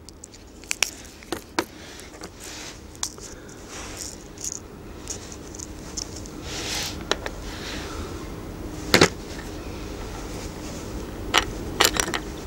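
Small clicks, taps and rustles of fingers handling fishing line and a split shot while pinching the shot onto the line. About a dozen sharp clicks are scattered through, the loudest about nine seconds in and a quick run of them near the end, over a faint hiss.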